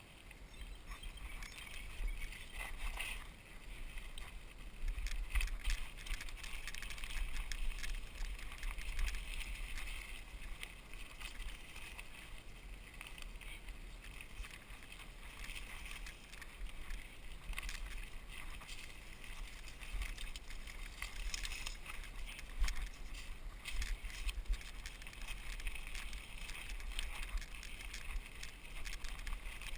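Mountain bike riding over a gravel road: tyres crunching on loose stones, with many small rattles and clicks from the bike and wind rumbling on the microphone.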